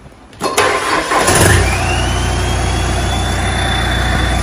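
Hino J05E four-cylinder common-rail diesel engine cranked by its starter, catching about a second in and settling into a steady idle, with a high whine that rises and levels off. It is being restarted with a newly fitted supply pump, replaced to cure common-rail pressure that fell short of target.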